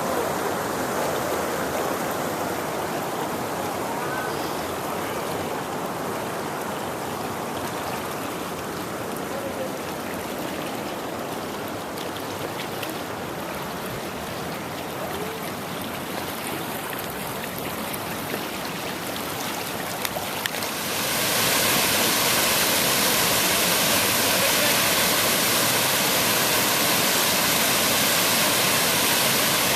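Water of the Pedernales River rushing over the falls, a steady wash. About two-thirds of the way through it steps up, louder and more hissing.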